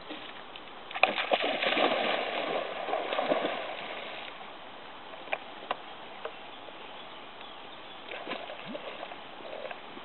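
Dog plunging into pond water with a loud splash about a second in, churning water for a couple of seconds, then quieter lighter splashes near the end as it swims out.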